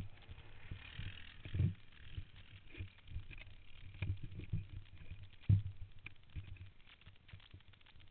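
Muffled low thumps and rumble from wind buffeting and jolts on the microphone of a camera mounted on a dirt bike riding a rough dirt road, with three heavier thumps standing out.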